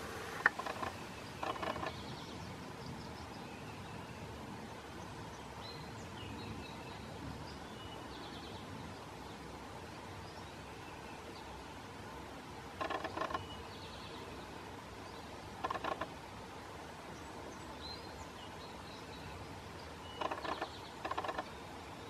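Faint clusters of quick knocks, a pileated woodpecker's bill chiselling into soft rotting wood while it digs for grubs, coming in several short bouts. Faint songbird chirps sound now and then in the background.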